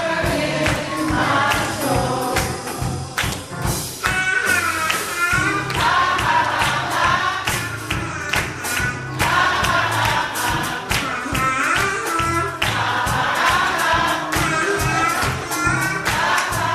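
Gospel music: sung vocal lines over a band with a steady drum beat and bass.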